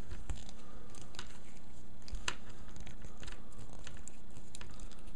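Scattered small clicks and taps of a mini Phillips screwdriver and plastic toy-figure parts being handled while tiny screws are removed, over a steady low hum.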